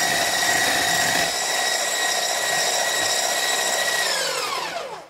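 Hand-held electric whisk (a blender motor with a wire whisk attachment) running steadily through cake batter in a plastic bowl, with a steady motor whine. About four seconds in it is switched off and the whine falls in pitch as the motor winds down to a stop near the end.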